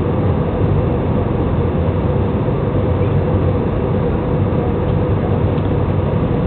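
Steady cabin noise inside a jet airliner in flight: an even drone of engines and rushing air, with a faint steady hum on top.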